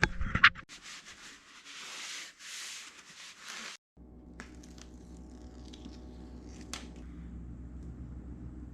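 A few sharp knocks, then several seconds of scratchy rubbing strokes, typical of scrubbing leftover adhesive off a Onewheel rail with a rag. After an abrupt cut, a steady low hum with a few light clicks.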